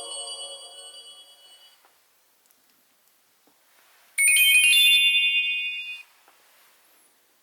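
Nokia 7500 Prism mobile phone ringtones: the end of one tune dies away over the first two seconds, then after a pause a short, bright, high-pitched jingle of about two seconds plays.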